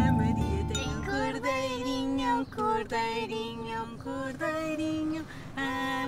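A woman and a young girl singing together, unaccompanied, in held, sung notes. The last low notes of background music die away in the first second.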